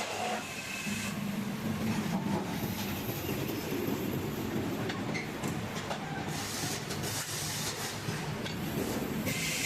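Table saw cutting oak boards: a steady machine drone with a low hum throughout, and a brighter high-pitched whine from the blade at the start and again near the end.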